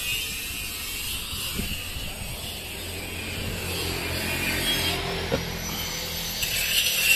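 Steady low hum of a running motor vehicle engine, with a faint high whine coming in during the second half.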